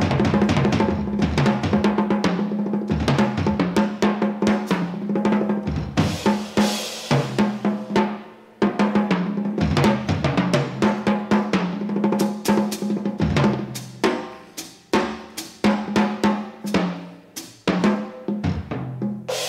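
Jazz drum kit played solo in fast, dense rolls across snare and toms with bass drum accents, thinning to separate hits near the end.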